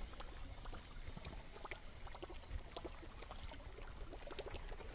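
Faint lapping and small splashes of lake water, with scattered light ticks over a low steady rumble.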